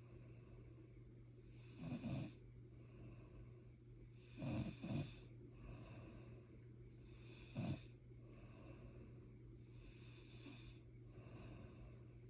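Snoring during sleep: short, loud snores every two to three seconds, one of them a quick double, with softer breathy exhales in between. After about eight seconds the loud snores give way to quieter breathing. A steady low hum runs underneath.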